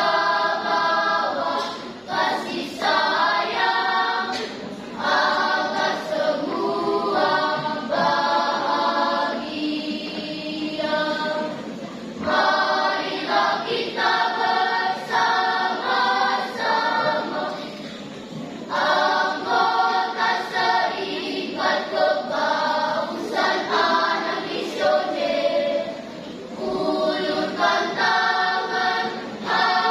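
Primary-school children's choir singing together in short sung phrases with brief breaths between them.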